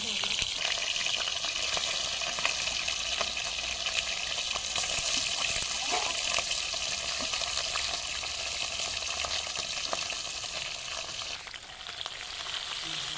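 Food sizzling as it fries in hot oil in a pan, with scattered clicks and scrapes from stirring. The sizzle dips briefly near the end.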